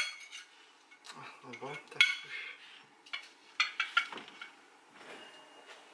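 Spatula scraping and clinking against a baking dish, prying loose food that has stuck to it, in a series of sharp knocks and scrapes.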